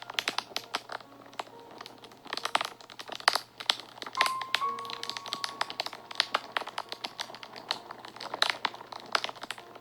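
Wood fire crackling, with irregular sharp pops and snaps, over soft background music of a few faint held notes.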